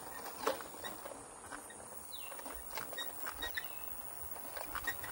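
A few short bird chirps, each falling in pitch, over a faint outdoor background, with scattered light clicks and taps.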